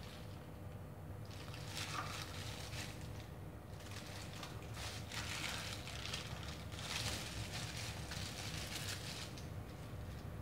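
Crinkle-cut blade slicing through a soft block of set gelatin jelly: repeated soft, wet squishing cuts, over a low steady hum.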